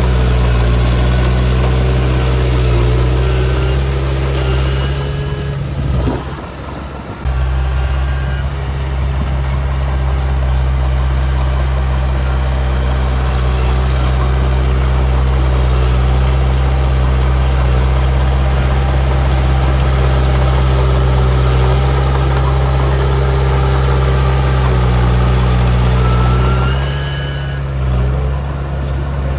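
Komatsu D31 bulldozer's diesel engine running steadily with a deep note. The engine eases off briefly about six seconds in and again near the end, and a couple of faint high squeals come near the start and near the end.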